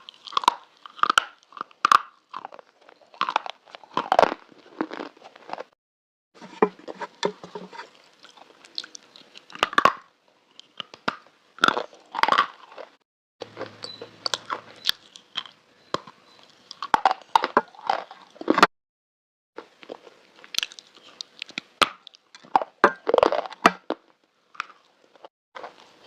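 Black slate being bitten and chewed close to the microphone: sharp snapping bites and gritty crunching. The crunching is cut off by sudden short silences three times, at edits between clips.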